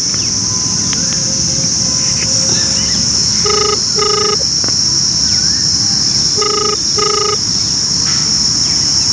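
Telephone ringback tone heard through a mobile phone's loudspeaker while the call waits to be answered. The beeps come in pairs, twice, about three seconds apart, in the Indian double-ring cadence. A steady high insect drone runs underneath.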